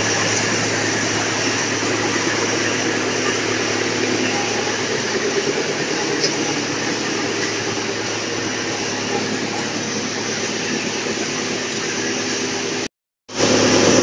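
Industrial wood chipper running with its feed conveyor: a steady mechanical drone with a constant low hum. The sound cuts out for a split second near the end.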